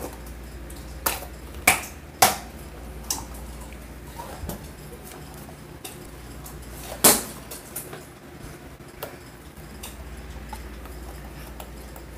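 Crumpled plastic water bottle squeezed and handled, giving scattered sharp crackles and clicks, the loudest about seven seconds in, over a low hum.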